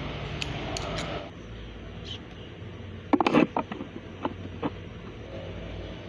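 A quick cluster of sharp metallic clinks about three seconds in, then three or four lighter single clicks. The sound is metal tools or engine parts being handled and set down.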